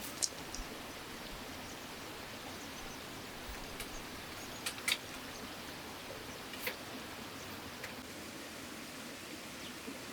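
A few short, sharp clicks and taps, scattered irregularly with two close together about five seconds in, over a steady faint hiss.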